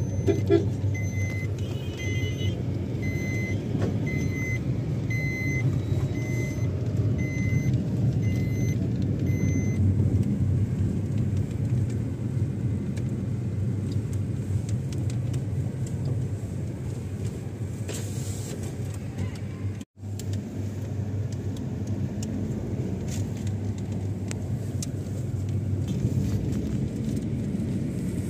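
Steady engine and road rumble of a car heard from inside the cabin while driving. For the first several seconds a series of short high electronic beeps repeats about once a second, and the sound cuts out for an instant about two-thirds of the way through.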